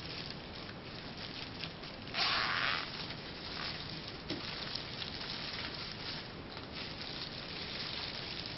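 Thin plastic merchandise bags rustling and crinkling as they are handled on the rope, with small clicks throughout. There is one louder rustle a little over two seconds in.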